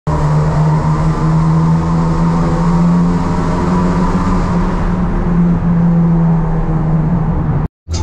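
Chevrolet Corsa GSI 1.6 16V engine and exhaust running at a steady pitch while the car cruises, heard from inside the cabin through a road tunnel, with tyre and road noise. The sound cuts out briefly near the end.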